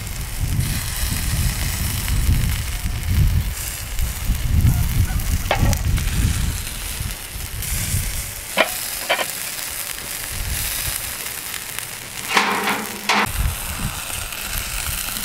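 Chicken sizzling on a steel grate over hardwood charcoal, with wind rumbling on the microphone in the first half. A few sharp metallic clicks and a short rustle of aluminum foil come about two-thirds of the way in, as the foil cover is lifted off the chicken.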